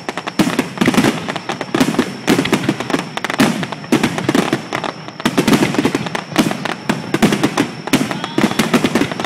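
Fireworks display going off in rapid, near-continuous succession: dense crackling with heavier bangs about every half second, with hardly a pause between them.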